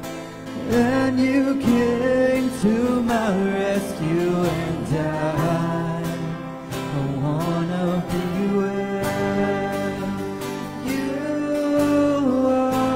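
Worship song: a woman singing a melody, gliding between long held notes, over strummed acoustic guitar.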